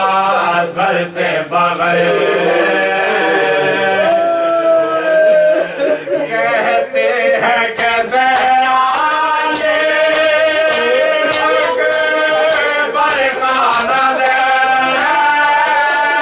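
Men's voices chanting an Urdu marsiya, a Shia elegy, unaccompanied, in long, held, wavering melodic notes.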